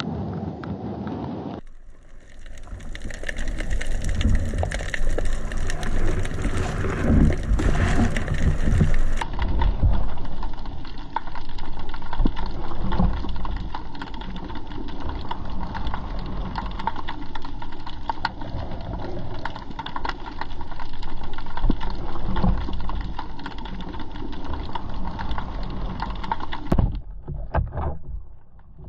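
Underwater sound picked up by a camera in its waterproof housing: a continuous muffled rush and rumble of moving water with crackling and knocking, and a faint steady hum under it. The sound changes abruptly about two seconds in and again around nine seconds, where the footage is spliced, and dips briefly near the end.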